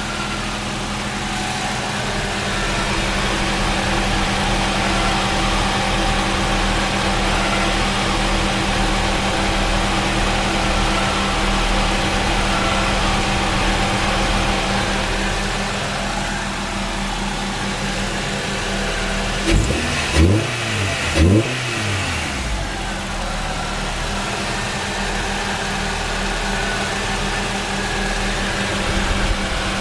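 Honda Prelude's H22A1 2.2-litre inline-four idling steadily, with the odd idle noise that the owner believes is transmission or clutch related. About two-thirds of the way through, the engine is blipped twice, its pitch rising and falling quickly each time.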